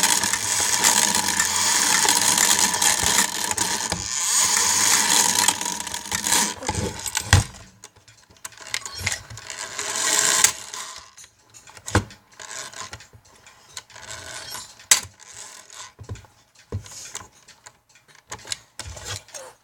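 Cuckoo clock movement's gear train whirring for about six seconds as its hand is turned, with a second, shorter whir a few seconds later. Then come scattered sharp clicks and knocks from the mechanism being handled.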